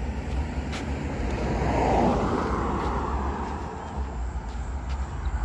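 A road vehicle passing by, its sound swelling and fading about two seconds in, over a steady low rumble.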